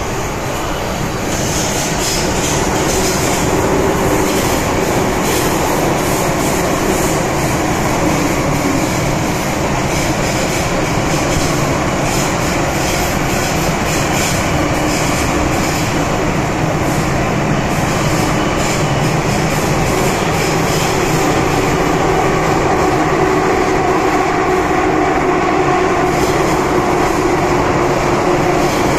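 MTR M-Train electric metro train running between stations: a steady rumble of wheels on rail with a motor hum and light clicks. It grows louder over the first few seconds and then holds steady.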